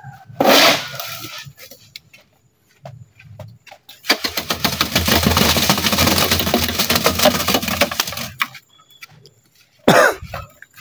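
Wet concrete mix scraped off a board with a trowel and sliding into a steel culvert mould, a gritty scraping and pouring that lasts about four seconds in the middle. There is a short scrape about half a second in and a sharp knock near the end.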